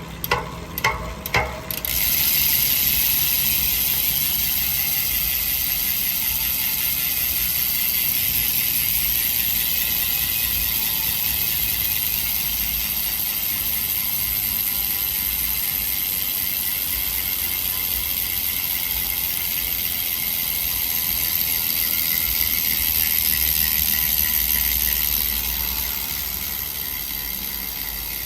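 Blackinc rear hub's freehub ratchet ticking as the wheel spins freely: a few separate clicks, then from about two seconds in a fast, steady, high buzz of pawl clicks that eases a little near the end.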